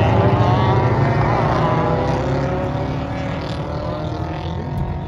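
Race car engines running hard on a dirt track, several pitches sliding up and down together, loud at first and fading steadily as the cars move away.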